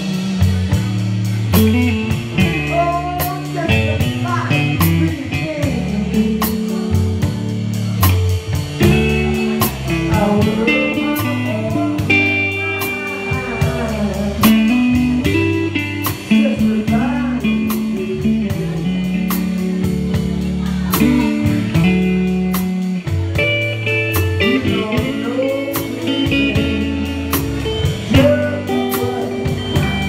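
Live blues band: a Telecaster electric guitar plays lead with bent notes over a drum kit keeping a steady beat with cymbal strokes and a low line moving underneath.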